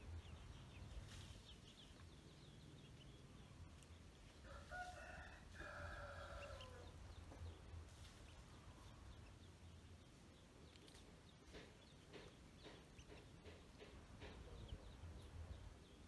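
A rooster crowing once, faint, starting about four and a half seconds in: a held call that falls in pitch at the end. Faint short peeps of ducklings come and go over a steady low hum.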